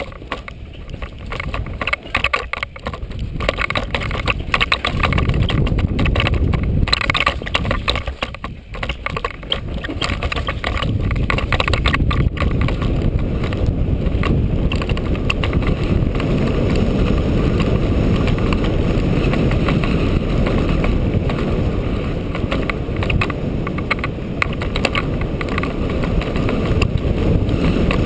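Downhill mountain bike descending fast: for the first ten seconds or so the chain and frame rattle and knock over roots and bumps, then the sound settles into a steady rush of wind on the microphone and tyres rolling on the dirt at speed.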